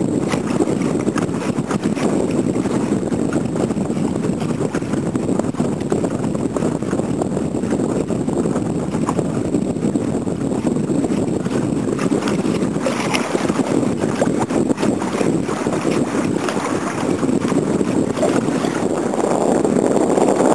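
Steady wind noise buffeting the microphone, getting a little louder near the end.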